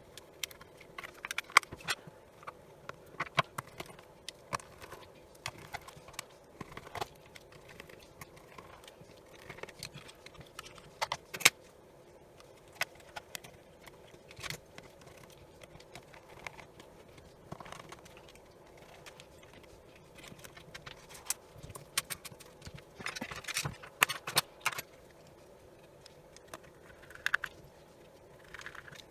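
Irregular clicks, taps and light rattles of small plastic housing parts and tools being handled while an inspection camera's screen unit is put back together. Short clusters of clicks come about a second in, around the middle and near the end.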